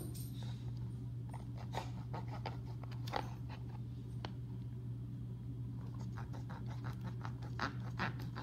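Fingers picking and scraping at a hard lump of toy dig-out compound, a scatter of small irregular scratches and clicks, over a steady low hum.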